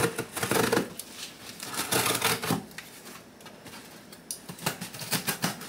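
A shipping package being opened by hand: irregular crinkling, tearing and rustling of the packaging. It eases off about halfway through and picks up again near the end.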